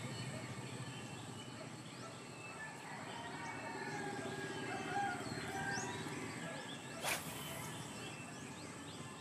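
A rooster crowing among other birds calling and chirping, with a short swish about seven seconds in as a fishing rod is cast.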